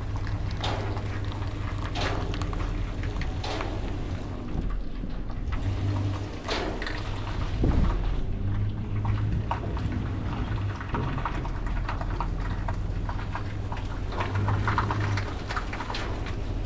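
Roll-off dumpster truck's engine running with a steady low hum, while rain falls on the truck in scattered ticks and taps.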